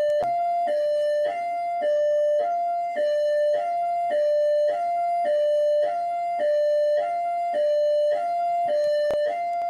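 PMERJ police siren in hi-lo mode: two tones alternating steadily high then low, each held a little over half a second.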